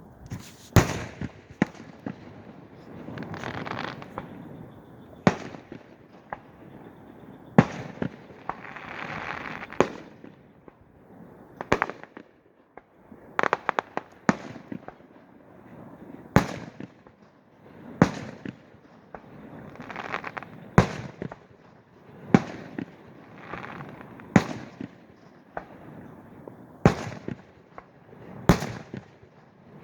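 Aerial fireworks display: loud bangs of bursting shells come every one to two seconds, with crackling and hiss between them and a quick run of pops about halfway through.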